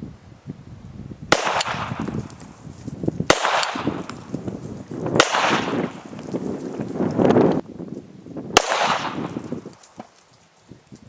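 A 3D-printed (DMLS) stainless-steel 1911 pistol firing .45 ACP rounds: single shots about two seconds apart, four in all, each followed by a long rolling echo.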